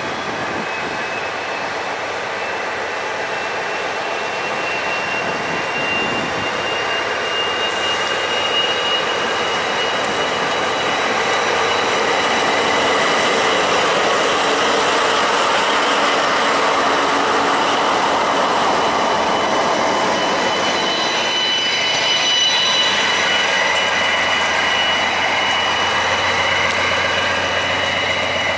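Two DB class 218 diesel-hydraulic locomotives working in tandem, running past close by with a passenger train. The noise builds as the locomotives come level, and the coaches then roll past, with a thin high whine that rises slightly in pitch.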